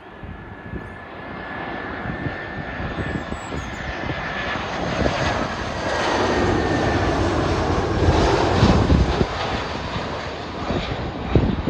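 Aer Lingus Airbus A320-family jet airliner on final approach with landing gear down, its jet engines growing louder as it passes low overhead and loudest about eight seconds in. A thin high whine sinks slightly in pitch in the first half, and wind buffets the microphone.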